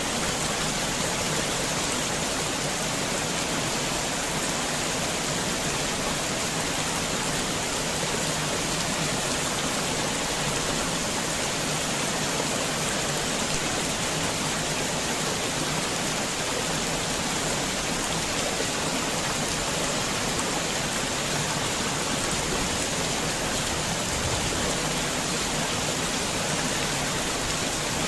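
Heavy rain falling steadily, a dense even hiss with no distinct drops or thunder.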